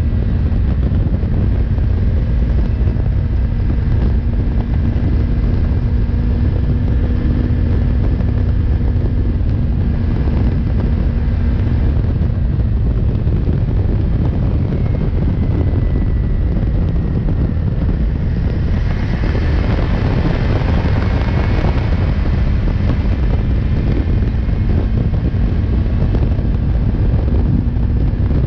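Wind rushing over the microphone with the Yamaha MT-03's engine running steadily underneath at highway cruising speed, about 115 km/h. A steady engine tone fades out about twelve seconds in and comes back near the end, and a louder, brighter rush swells for a few seconds about two-thirds through.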